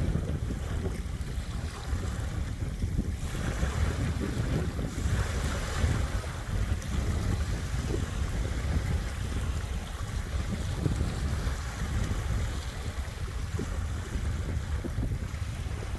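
Small waves washing onto a beach, with wind rumbling on the microphone throughout. The wash of water swells for a few seconds, starting about three seconds in.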